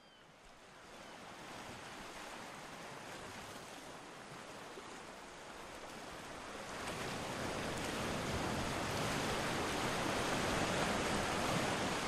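A steady, surf-like rushing noise that grows steadily louder, brightening about seven seconds in, with a faint gull call at the very start.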